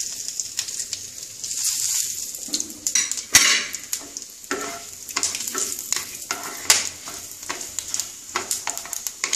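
Bay leaves, cumin seeds and crushed whole garam masala sizzling in hot oil and butter in a kadai, a spatula stirring them with repeated clicks and scrapes against the pan. One sharp knock stands out about three and a half seconds in.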